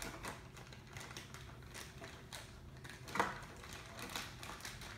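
Small plastic toy pieces clicking and rattling as they are handled, with one louder click about three seconds in.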